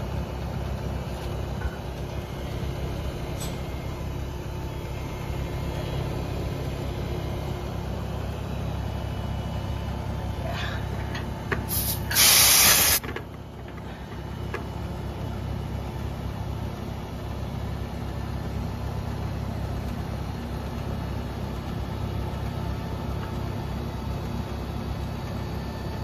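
Outdoor air-conditioning condensing unit running steadily, with compressor hum and condenser fan. About twelve seconds in comes a loud hiss lasting about a second: refrigerant gas released at the gauge manifold's hose fittings.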